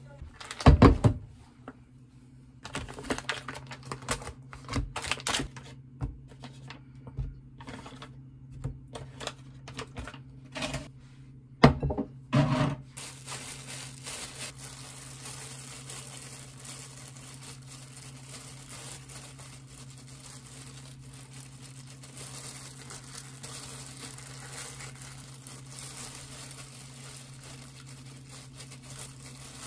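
A run of sharp clicks and knocks, loudest about a second in and near the middle. Then a steady crinkling of disposable plastic gloves as hands press rice into fried tofu pockets, over a low steady hum.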